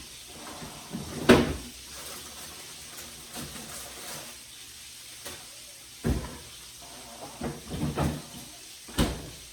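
Kitchen cupboard doors being opened and shut and things moved about while searching, with a sharp knock about a second in and several more knocks and bumps later.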